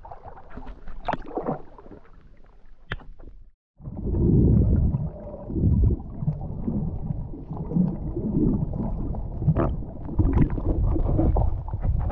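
Water sloshing and splashing around a camera held at the water's surface. After a short break it changes to a dense, muffled underwater rumble and gurgle of moving water and bubbles against the camera housing, with scattered clicks.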